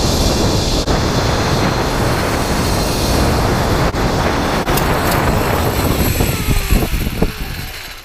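Zip-line trolley pulleys running fast along the steel cable, a loud steady rushing whir. About six seconds in, the whine falls in pitch and the noise fades as the trolley slows into the landing platform, with a few knocks near the end.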